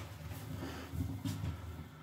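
Sponges squeezed and kneaded by gloved hands in a tub of heavy soap foam and soapy water: soft wet squelching, loudest about a second in.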